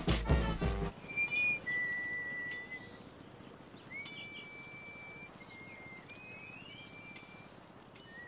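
Music ends about a second in. After that comes quiet rural ambience: small birds giving thin, high whistled notes, some held at one pitch and some gliding upward, over a faint hiss.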